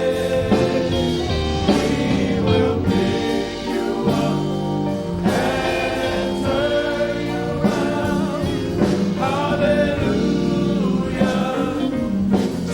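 Choir singing a gospel song with instrumental accompaniment, steady and full throughout.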